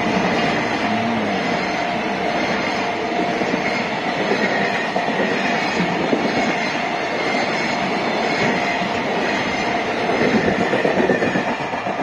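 Container wagons of a freight train rolling past at close range: a steady, loud rumble and clatter of steel wheels on the rails, with a steady thin tone running through it and a slight swell near the end.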